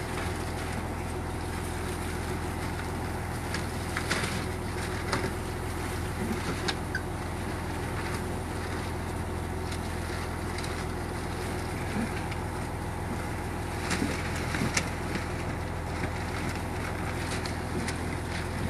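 Fishing boat's engine running steadily with a low drone, with scattered sharp clicks and knocks as the gillnet and its floats pay out over the side.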